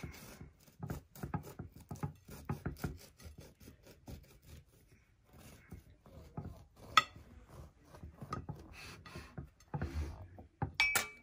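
Serrated bread knife sawing back and forth through the crust of a freshly baked milk-bread loaf, a run of quick scraping strokes, with one sharp tap about seven seconds in.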